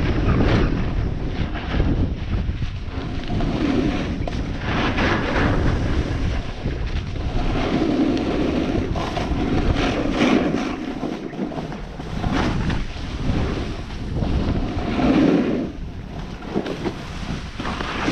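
Wind buffeting the microphone of a camera carried down a groomed ski run, under the scrape and hiss of edges carving across firm snow, which swells with each turn every couple of seconds.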